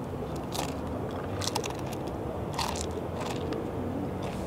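A person biting and chewing the Paqui One Chip Challenge chip, a crisp spicy tortilla chip: a few separate crunches, irregularly spaced about half a second to a second apart.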